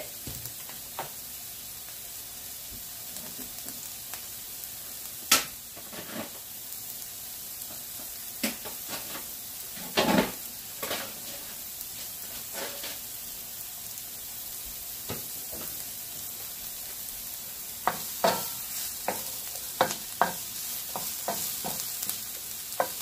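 Diced onions sizzling steadily in olive oil in a frying pan. A few sharp knocks come through, the loudest about five seconds in, and near the end a wooden spoon stirs the onions with repeated taps and scrapes against the pan.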